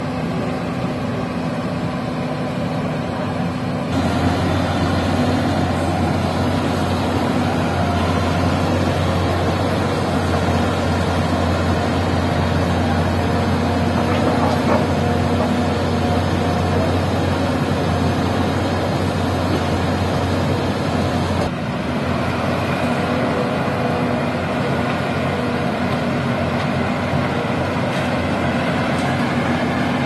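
Volvo crawler excavator's diesel engine running steadily, with abrupt changes in the sound about four seconds in and again a little past twenty seconds.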